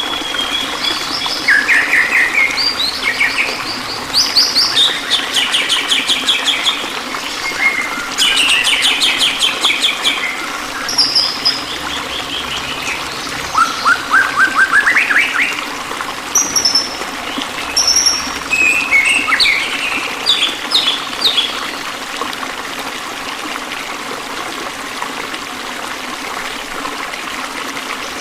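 Songbirds chirping and trilling over a steady rush of flowing water, with several different calls, including rapid trills and rising phrases. The calls thin out over the last few seconds.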